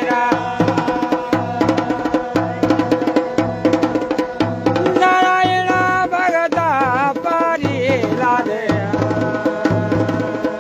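Garhwali folk music: dhol and damau drumming in a steady repeating rhythm under a wavering, ornamented melody line.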